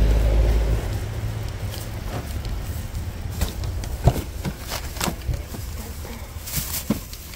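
Footsteps on pavement, then the sharp click of a minivan's exterior door handle and latch about four seconds in as the driver's door is opened, followed by more knocks and rustling. A low rumble sits underneath, heaviest at the very start.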